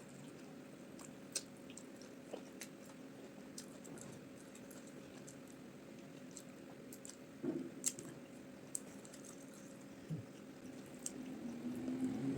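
Close-miked eating sounds of omotuo rice balls and peanut soup: soft wet chewing and swallowing, with scattered small mouth clicks and a few louder smacks about a second and a half in, near the middle and about ten seconds in. A faint steady hum runs underneath.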